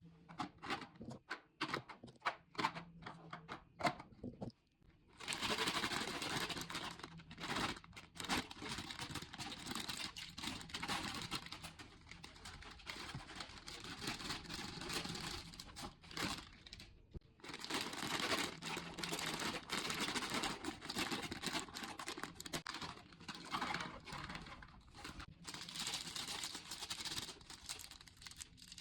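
A quick run of sharp taps and clicks, then plastic snack wrappers crinkling continuously as packaged snacks are handled, with a short pause midway.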